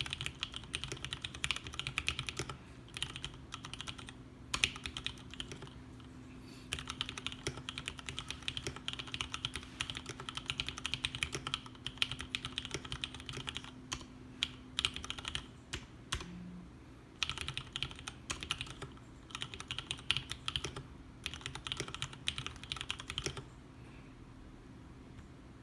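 Typing on a custom tenkeyless mechanical keyboard with lubricated vintage Cherry MX Brown switches, PBT DSA keycaps, a foam-dampened acrylic case: a fast, dense run of keystrokes with a couple of short pauses, thinning to a few strokes near the end.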